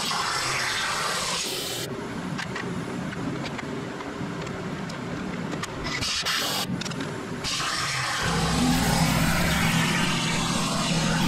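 CNC plasma torch cutting steel plate with a harsh, hissing arc. The hiss thins for a few seconds mid-way while the torch is not cutting, then the arc comes back with a steady low hum under it.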